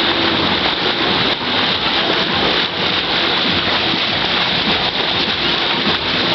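Steady, loud rush of water around a moving boat, with no clear pitch.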